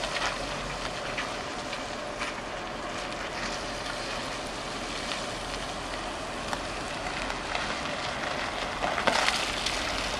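VW T5 Edition 25 van driving on a wet, puddled surface: a steady hiss of tyres on wet ground, with a louder rough splash about nine seconds in as it runs through standing water.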